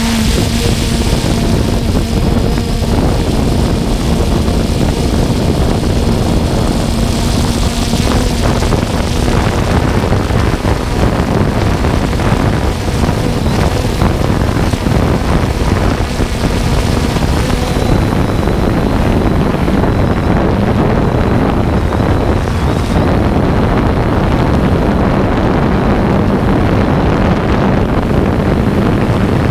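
3DR Solo quadcopter's motors and propellers whirring in flight, heard from the GoPro slung beneath it: a loud, steady rush of rotor noise and wind with a faint motor whine under it.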